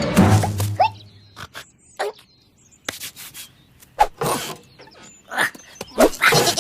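Cartoon lamb hiccupping: a series of short, sudden squeaky 'hic' sounds about a second apart, with small clicks and taps in between.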